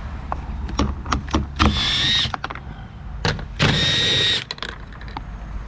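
Small electric motor whining in two short runs, about a second and a half apart, with sharp clicks and knocks of work on the car door around them.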